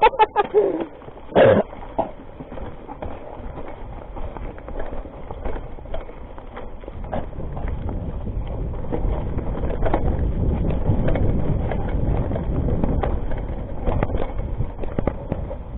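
Rockrider ST 520 mountain bike rolling down a rocky, leaf-covered dirt trail: tyres rumbling over ground and stones with many small rattles and knocks, building up as speed rises about halfway through. A short loud voice sound, like a cough, comes about a second and a half in.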